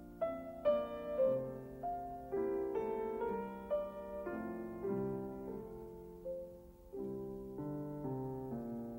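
Piano music: chords and single notes struck and left to ring, with a new note or chord about every half second to second.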